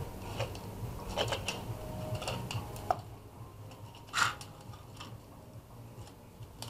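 Scattered small clicks and plastic crackles as blister packs of microSD memory cards are handled and opened by hand, with one louder crackle about four seconds in, over a low steady hum.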